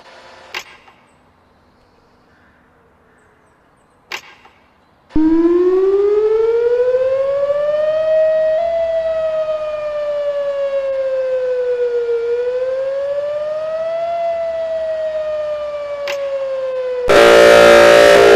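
Whelen 4004 electronic outdoor warning siren sounding a slow wail: after two sharp clicks, the tone starts about five seconds in, rises for about three seconds, falls, rises and falls again. Near the end it cuts abruptly to a louder, harsher sound with many tones stacked together.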